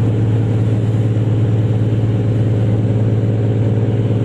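Fishing boat's engine running steadily: a low, even drone that holds constant.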